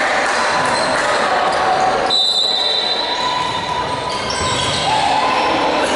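Echoing sports-hall noise during a pause in a volleyball game: voices of players and onlookers, with a volleyball bouncing on the court floor.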